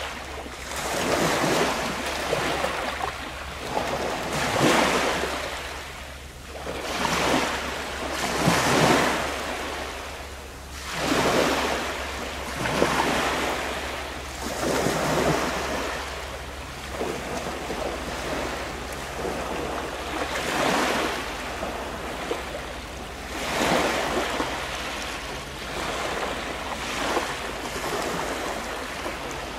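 Sea waves washing against the shore in repeated surges every two seconds or so, easing for a few seconds past the middle. A steady low rumble of wind on the microphone runs underneath.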